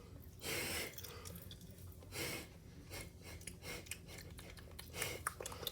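Faint chewing of Pop Rocks popping candy, with a few small clicks and three soft noisy puffs of breath.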